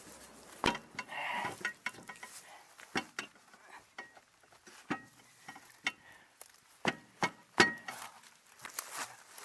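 Irregular metallic clinks and knocks of hand tools and metal car parts being handled, about a dozen sharp strikes, some leaving a brief ring.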